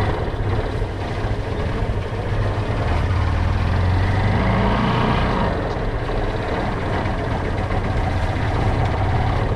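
Motorcycle engine running as the bike rides over a rough, stony dirt track. It is heard through a handlebar-mounted GoPro as a steady, heavy low rumble under a dense noise of wind and road.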